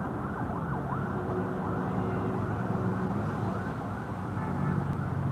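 A siren wailing, its pitch sweeping up and down over and over, above a steady low hum of traffic.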